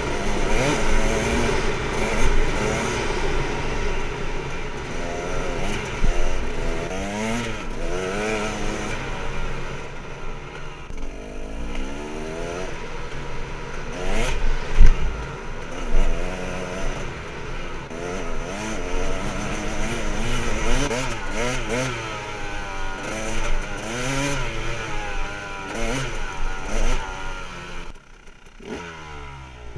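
Husaberg TE300 two-stroke dirt bike engine revving up and down as it is ridden, its pitch rising and falling repeatedly with the throttle, over rattling from the bike. There is a loud knock about 15 seconds in, and the engine drops back quieter near the end.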